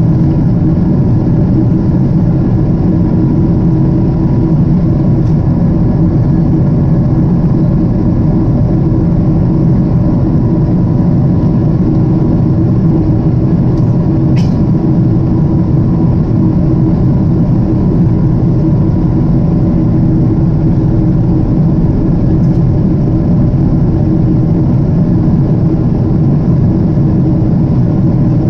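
Steady cabin drone of a Japan Airlines jet airliner in flight: engine noise and rushing air, loud and unbroken, with a deep hum and a few faint steady tones in it.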